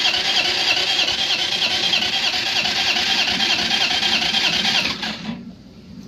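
Electric starter cranking a Chinese scooter engine steadily for about five and a half seconds. The engine never catches and the cranking stops about five seconds in. The engine turns over but won't fire, even though fuel reaches the carburettor and there is spark and compression.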